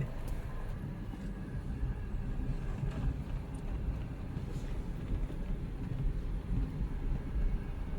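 A steady, low rumbling noise, uneven from moment to moment, with a few faint clicks and no speech.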